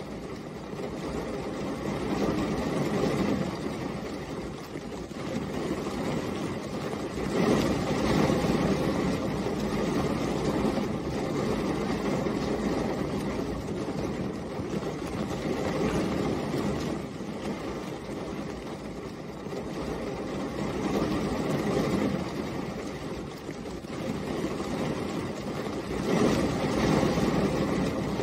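Steady rain falling on a car, heard from inside, a deep, rumbling wash that swells and eases every few seconds.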